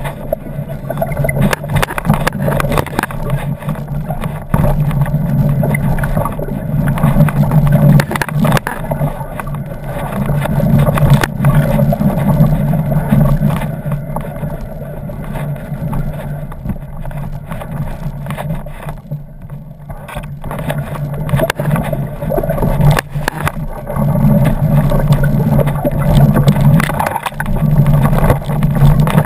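Off-road motorcycle engine running on a rough dirt trail, swelling and easing with the throttle, with scattered knocks from the bumpy ground.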